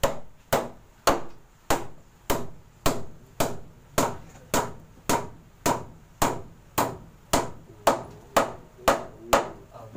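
A hammer strikes wood in a steady rhythm, nearly two blows a second and about eighteen in all, fixing a wooden wall cabinet in place. The blows stop shortly before the end.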